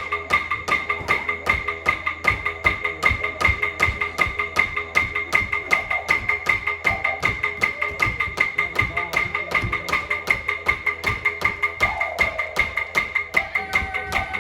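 Clapsticks struck in a fast, even beat of about five a second over a steady didgeridoo drone, accompanying an Aboriginal traditional dance.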